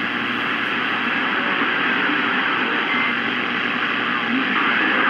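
Steady rushing static from a CB radio receiver tuned to channel 28, the hiss of an open channel during skip conditions between transmissions.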